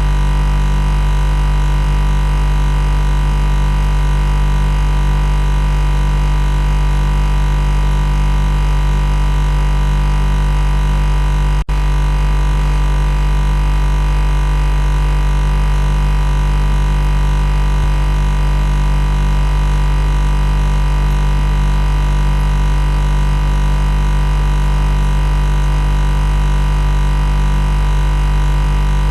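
Loud, steady machine buzz: a low, unchanging hum with many overtones, cutting out for an instant about twelve seconds in.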